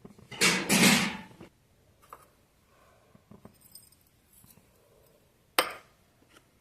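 Handling noises from objects being moved: a loud rustling scrape lasting about a second, a few light clicks, then a single sharp clink about five and a half seconds in.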